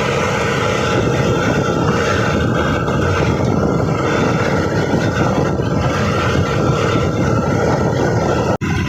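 Mahindra tractor's diesel engine running steadily as the tractor drives along the road. The sound breaks off for an instant near the end.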